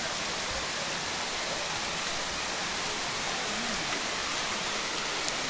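Waterfall's rushing water: a steady, even hiss.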